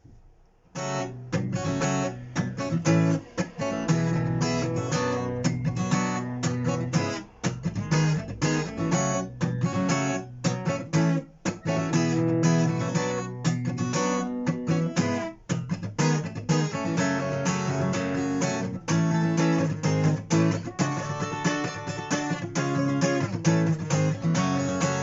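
Acoustic guitar strummed in a steady rhythm, the chords broken up by sharp percussive strokes on the strings, the 'knock' (стук) strumming technique. It starts about a second in.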